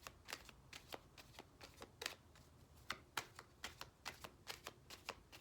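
Oracle cards being shuffled by hand: a faint run of irregular card flicks and snaps, several a second.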